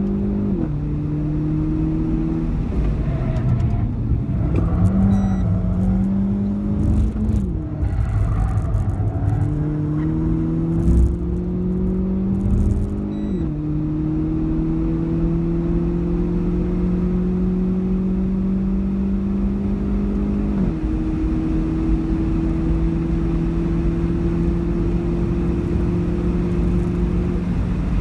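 Renault Clio 4 RS's 1.6-litre turbocharged four-cylinder engine, heard from inside the cabin, pulling hard under full acceleration. The pitch climbs slowly in each gear and drops sharply at each of several upshifts.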